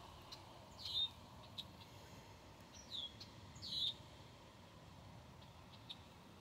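A bird chirping faintly: three short calls that fall in pitch, about one second in and twice around three to four seconds in.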